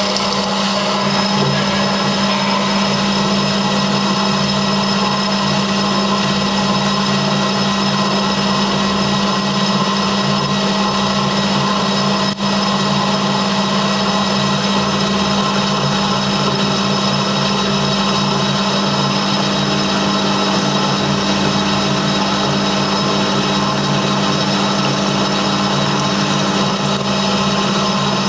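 CZK0640A CNC lathe running through a machining cycle: a steady motor and spindle hum with a strong low tone and a high whine over it, broken by a brief dropout about twelve seconds in.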